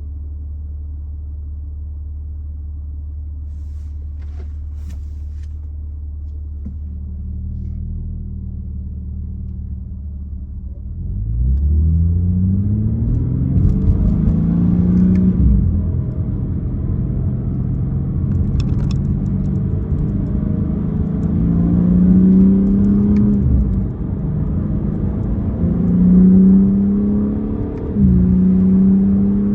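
BMW M4 Competition's twin-turbo straight-six running at a steady low drone, then accelerating from about 11 seconds in, its pitch climbing and dropping back at gear changes about three times.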